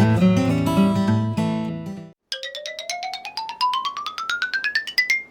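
Intro music: acoustic guitar music that stops about two seconds in, followed by a quick run of short plucked notes climbing steadily in pitch, about eight notes a second, over roughly two octaves.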